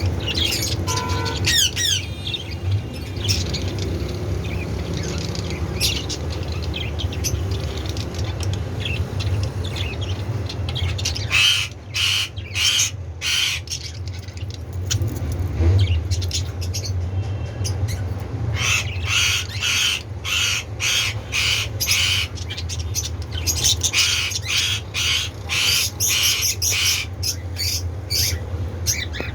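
A colony of budgerigars chirping and squawking in quick runs of short, high calls, busiest in the second half, over a steady low hum.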